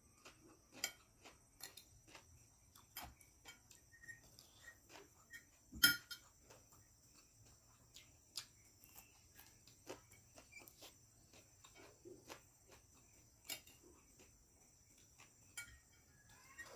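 Eating from a plate: irregular small clicks and clinks of a spoon against the plate along with eating noises, one louder clink about six seconds in. A faint steady high whine sits underneath.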